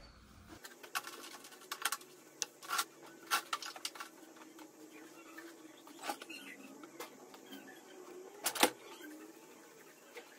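Scattered light clicks and knocks of items being handled and set down on a kitchen counter as it is wiped clean, the loudest knock near the end, over a faint steady hum.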